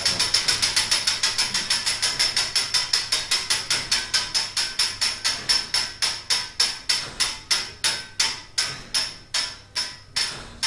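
Bruges Belfry clock movement running down as its fan fly turns: rapid, ringing metallic clicking that slows steadily from about six clicks a second to about two.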